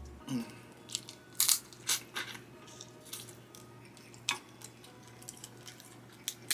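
Crab leg shells being picked and cracked apart by hand, with chewing: scattered close-up crackles and clicks, and a few sharper cracks.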